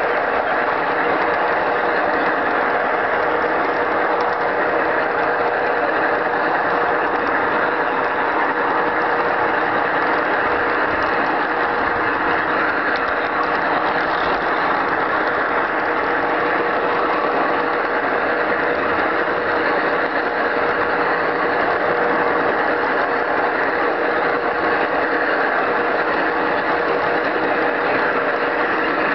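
Garden-scale model train running steadily along its track, heard from a camera riding on the train: a dense, even whirr of gears and wheels on rail with a steady whine.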